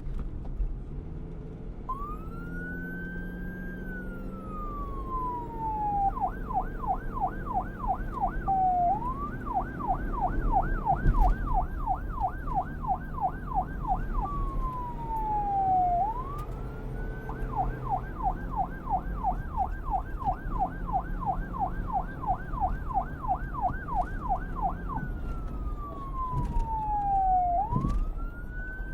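Electronic emergency-vehicle siren switching between a slow wail, rising and falling over a few seconds, and a fast yelp of about three to four sweeps a second, over a low rumble.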